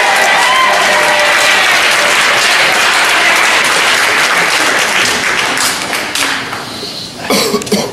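Audience applauding, with a few shouts in the first couple of seconds. The applause thins out about six seconds in, and a voice is heard briefly near the end.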